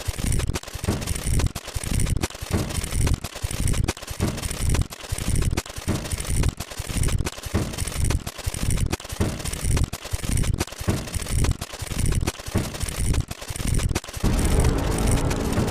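A rapid run of sharp, bang-like sound-effect hits, about two a second, each cut off abruptly. A pitched, tone-like sound comes in near the end.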